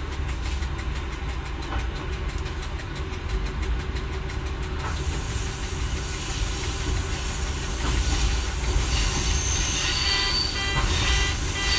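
Y1 diesel railcar running slowly, heard from the driver's cab: a steady low rumble of engine and wheels with an occasional click from the rails. From about five seconds in, a thin high squeal sets in, and more squealing tones join it near the end as the wheels take the curving track.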